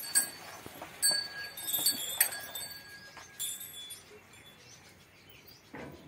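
A steel water pail clinking and ringing as it is handled, several metallic clinks in the first few seconds, then quieter.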